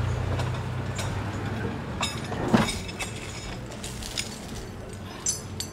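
Belongings being taken out of a car through its open door: scattered knocks and clinks, with one sharper knock about two and a half seconds in, over a low steady rumble.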